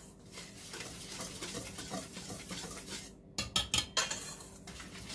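Wire whisk stirring dry flour mix in a stainless steel bowl: a soft, steady scraping, then about three seconds in a quick run of sharp metallic clicks as the whisk knocks against the bowl.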